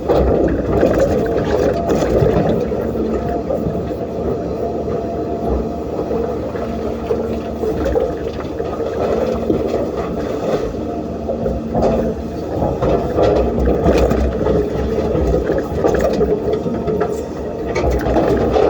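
Hydraulic excavator's diesel engine running under load, its hydraulics giving a steady groaning whine, with scattered knocks and scrapes of the bucket working sand and stones.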